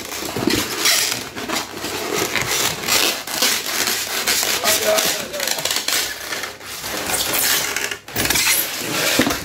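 Cardboard box and foam packing rustling, scraping and knocking as a packed pressure washer and its power cord are worked out of the box by hand.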